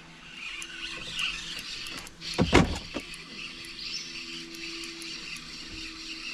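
Creek water rushing and splashing around a kayak, with one loud splash about two and a half seconds in and scattered light clicks.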